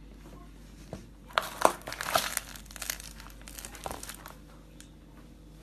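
A small cardboard pack of HEETS tobacco sticks being crushed under a sneaker sole, giving a run of sharp crinkling, crackling snaps that starts about a second and a half in, with a few softer crackles near four seconds.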